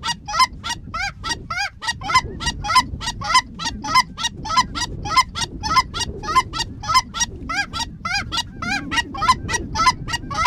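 Hand-blown goose calls worked hard and fast: a continuous run of short, rising clucks and honks, about four a second, calling to geese circling overhead.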